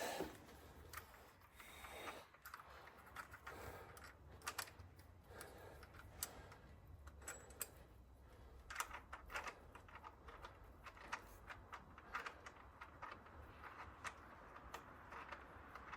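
Faint, irregular light clicks and taps of small metal engine parts being handled, over a faint low steady hum.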